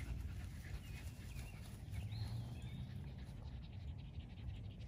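Miniature Pinscher panting hard after running, with a few faint high chirps and a low steady rumble underneath.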